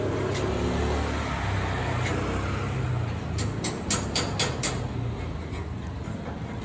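Steady low rumble of a running vehicle, like traffic. About halfway through comes a quick run of about six sharp clicks.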